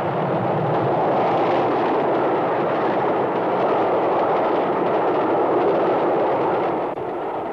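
A passing train: a loud, steady rush of running noise that drops off near the end.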